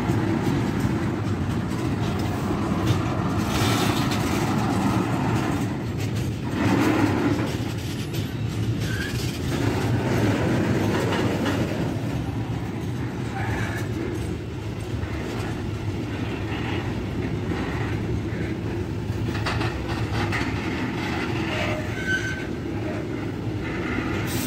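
A train rolling past on the rails, a steady rumble of wheels and wagons with scattered clatter, swelling briefly about seven seconds in.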